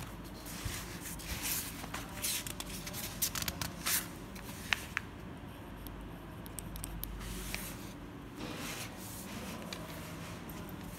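Paper rustling and notebook pages being handled and turned, with a pen writing on the paper.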